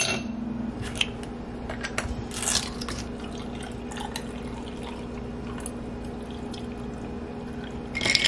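Ice cubes clinking into a glass, then cold brew coffee concentrate poured over the ice in a steady pour. A few clinks against the glass near the end.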